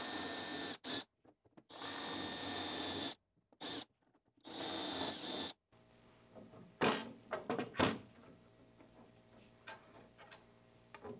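Cordless drill with a Forstner bit boring into laminated chipboard in three short runs, cutting recesses so bolt heads sit flush. Then come a few sharp clicks and knocks, the two loudest near the end of the second quarter, as bolts are set into the holes by hand.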